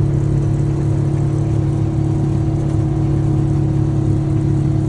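Side-by-side UTV engine running at a steady speed while driving, heard from the cab as a constant hum.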